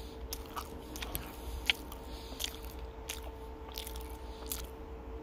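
Close-miked chewing of a double cheeseburger, with irregular wet mouth clicks and smacks. A faint steady hum runs underneath.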